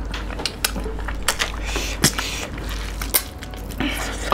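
Close-miked eating sounds of two people eating rice and fish curry by hand: wet chewing and mouth clicks, with irregular smacks and squishes.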